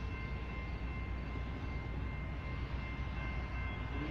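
Distant Norfolk Southern freight train approaching a grade crossing: a low, steady rumble, with the crossing bells ringing steadily over it.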